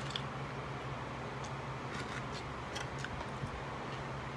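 Eating sounds: scattered faint clicks and ticks of a fork and spoon working food on a plate and aluminium foil, over a steady low hum.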